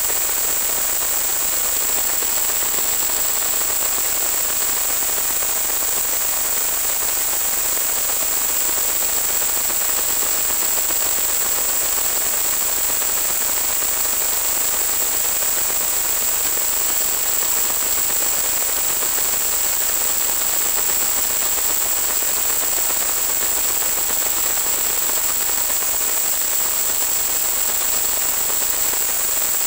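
Steady static hiss with a thin high whistle running through it, unchanged throughout: the empty audio channel of an analog FPV video receiver, not sound from the aircraft.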